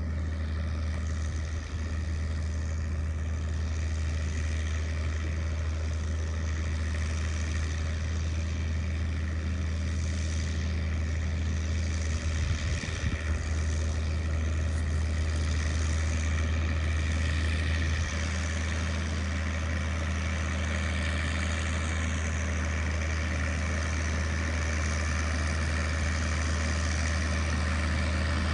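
An engine running steadily, a low hum with an even drone over it, getting slightly louder near the end.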